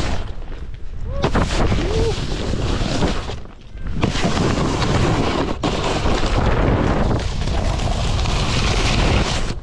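Rushing wind buffeting the camera microphone while a snowboard slides and scrapes over packed snow, with a brief lull about three and a half seconds in.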